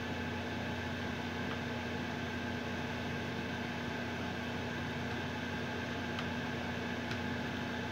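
Steady hum and hiss with a low held tone, with a few faint clicks about one and a half, six and seven seconds in.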